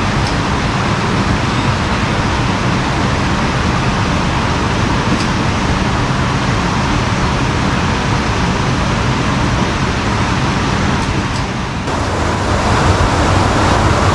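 Loud, steady rush of flowing water in an irrigation canal, with no pitch to it; its tone shifts slightly about twelve seconds in.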